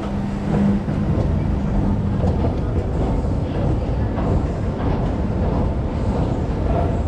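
Steady rumble of city street traffic mixed with a running escalator, with a low steady hum through the first two seconds and faint voices of people nearby.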